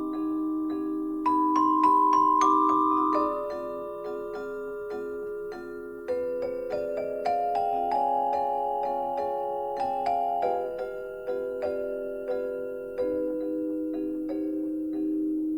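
Background music: a gentle melody of struck mallet-percussion notes, like marimba or glockenspiel, a new note every half second or so.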